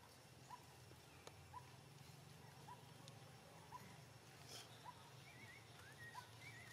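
Faint outdoor ambience: a bird's short, upward-hooked note repeated about once a second, joined near the end by a few quick higher chirps.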